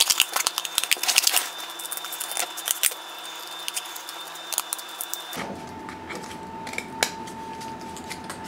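Scissors cutting through corrugated cardboard: a quick run of snips in the first second and a half, then scattered single snips.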